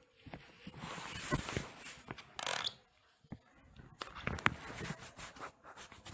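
A sleeping person grinding their teeth (bruxism): a run of short, gritty scrapes and sharp clicks.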